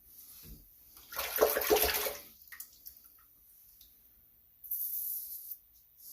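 Water running from a tap for about a second, starting a second in, then a short high hiss near the end.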